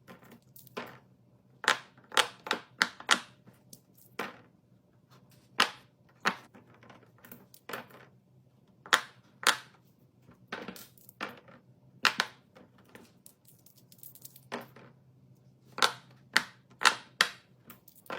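Silicone pop-it fidget toy being pressed, its bubbles popping with short, sharp clicks at an irregular pace, sometimes several in quick succession, over a faint steady hum.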